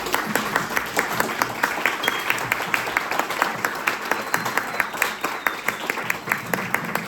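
Audience applauding, with many individual claps heard distinctly and the clapping holding steady throughout.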